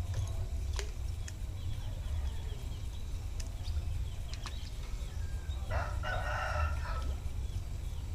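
A rooster crows once, a harsh call of about a second, a little past the middle. Small birds chirp in quick runs throughout, over a steady low rumble.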